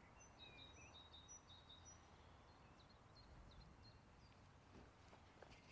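Near silence outdoors, with faint bird chirps and short high calls repeating through the first few seconds.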